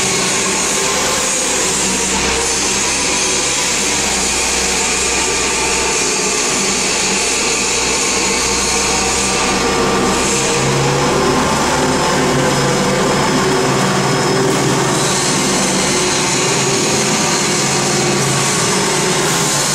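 Pulping machinery of a paper egg tray plant running steadily: electric motors, the pulp-pool stirrer's gear motor and pulp pumps giving a constant hum under a loud hiss.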